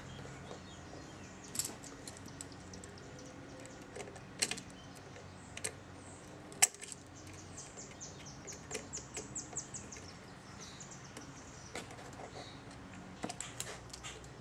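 Light metallic clicks and taps of small steel parts being handled as a linkage arm is set into place on a Victor phonograph spring motor. The clicks are scattered, with a sharper click about six and a half seconds in and a quick run of about ten light ticks in the middle.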